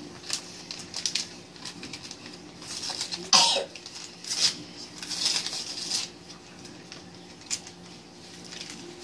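Paper envelopes being torn open and cards rustling in hands: a string of short tearing and crinkling sounds, with one louder sharp noise about three seconds in.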